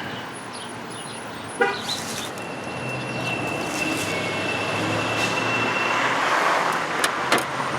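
A road vehicle going past, its noise slowly swelling to a peak about six seconds in, with a faint steady high whine through the middle. There are a couple of light clicks near the end.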